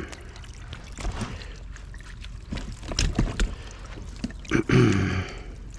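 Paddling a plastic sit-on-top kayak: irregular splashes of the paddle in the water and light knocks against the hull. A short voice-like sound near the end.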